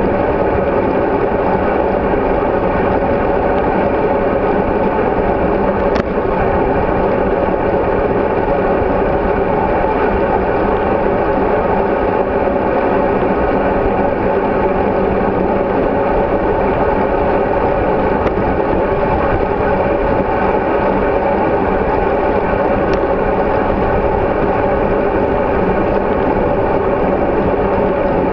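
Steady, muffled wind and road rumble picked up by a bicycle-mounted GoPro Hero3 camera while riding a road bike at speed.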